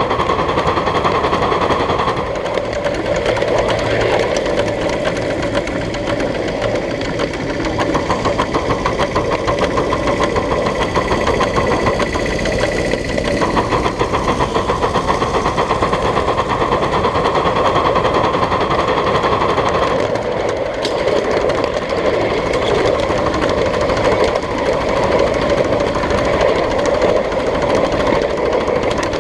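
1/8-scale live steam locomotive, a Northern (4-8-4), working along the track with a rapid, even run of exhaust chuffs that goes on without a break.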